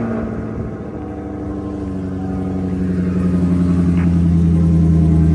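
Chevrolet Camaro SS V8 idling just after being started, a steady low engine note whose level dips about a second in and then slowly climbs.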